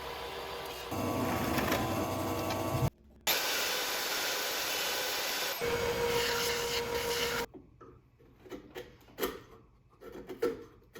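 Workshop tool noise, a loud steady rasping and grinding, in several short stretches that cut off abruptly, typical of metal being cut, ground or welded during the cart's fabrication. Near the end it gives way to a few light knocks and clatters.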